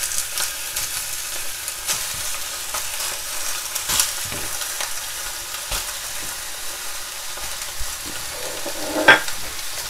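Bone-in goat meat sizzling in a hot stainless steel saucepan: a steady hiss with a few sharp clicks, the loudest near the end.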